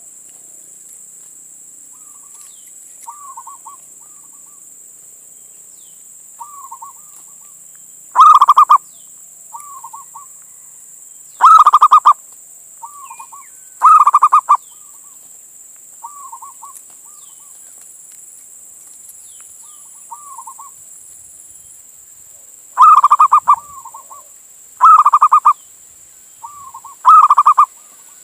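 Male zebra dove (perkutut) cooing: six loud rolling coos of about half a second each, with softer short coo phrases in between.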